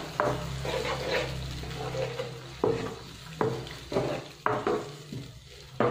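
A black plastic spatula stirring and scraping onion and tomato masala around a non-stick kadhai, in a few separate strokes about a second apart.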